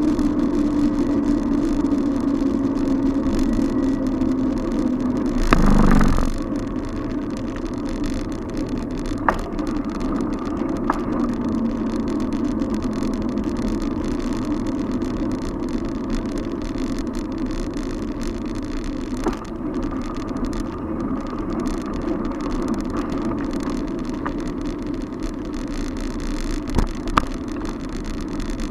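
Steady road and traffic noise heard from a bicycle riding through city streets. A louder rush of noise comes about six seconds in, and a few sharp clicks are scattered through it.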